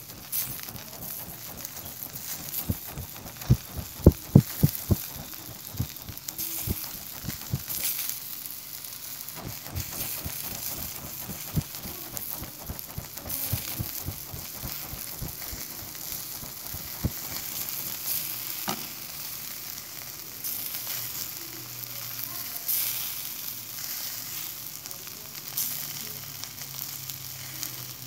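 Mutton liver skewers sizzling over glowing charcoal: a steady hiss with scattered crackles. A quick run of louder low knocks comes about four seconds in.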